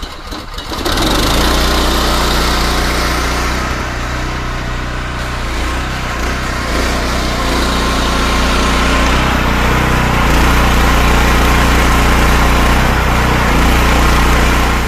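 Small gas engine of a pressure-washing cleaning machine running steadily, with the hiss of its high-pressure water spray over it; it gets louder about a second in.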